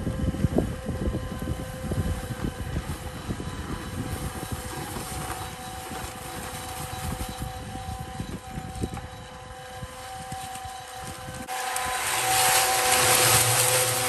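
Portable cement mixer running with a steady motor hum, while wind buffets the microphone. About eleven seconds in, the sound turns louder and hissier as the concrete mix and gravel churn in the turning drum close by.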